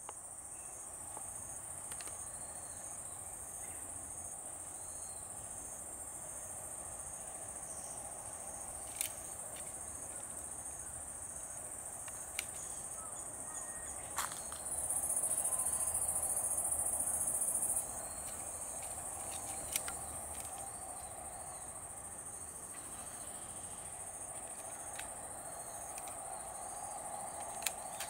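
Insects calling in the grass: a steady, high, continuous shrill, joined for about three seconds midway by a louder, higher-pitched buzz, with a few faint clicks.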